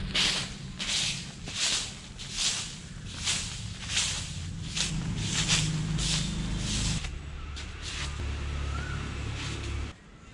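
Bundled outdoor broom sweeping bare earth and dry leaves: about ten brisk rasping strokes, roughly one every 0.7 s, stopping about 7 s in.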